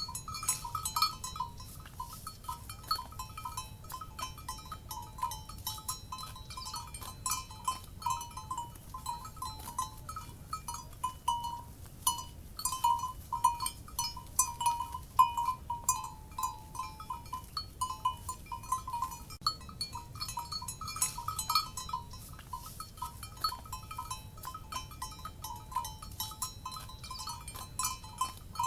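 Cowbells on grazing livestock clanking continuously and irregularly, a metallic ringing near one pitch struck over and over.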